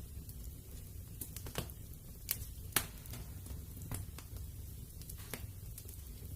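Wood fire crackling in a fireplace: irregular sharp pops and snaps, about ten of them, the loudest a little before three seconds in, over a steady low rumble of the burning.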